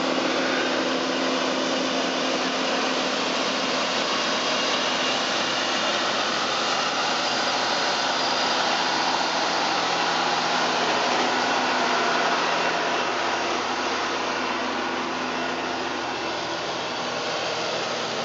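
Diesel engine of a backhoe or its transport truck running steadily at a constant pitch, easing off slightly toward the end.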